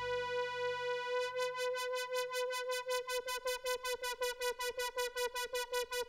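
Korg Poly 800 analog synthesizer holding one bright note that pulses in a steady rhythm of about five times a second. A buzzy high layer comes in about a second in, and the pulsing grows deeper towards the end.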